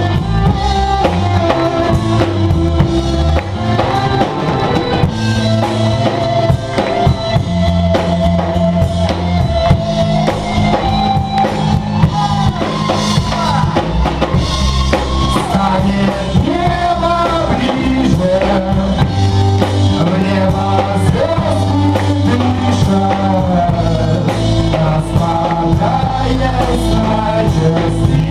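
Live band music: a drum kit and bass keep a steady beat under a melodic lead line that glides up and down.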